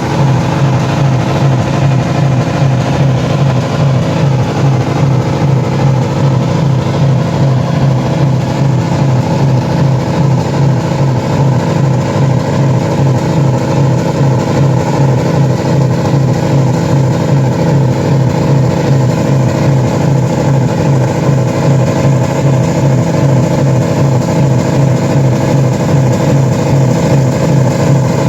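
Car engines held at a steady high speed, being run flat out to destruction. A loud, unchanging drone with a fast, even pulse and no rise or fall in pitch.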